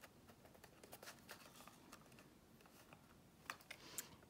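Near silence: faint handling noise from a clear acetate box with a paper border, with a couple of light clicks near the end.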